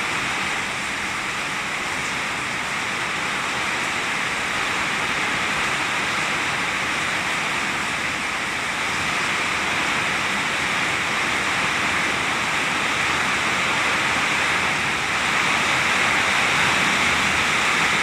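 Heavy rain falling steadily, a dense even hiss that grows a little louder about fifteen seconds in.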